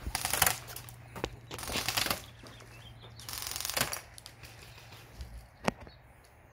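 Airsoft gun firing three short full-auto bursts, each a rapid rattle about half a second long, coming in quick succession. A single sharp tap near the end.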